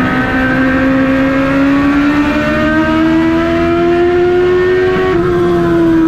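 Race car engine heard from inside the cockpit, running hard under load, its pitch climbing steadily for about five seconds as the car accelerates, then dropping off a little near the end.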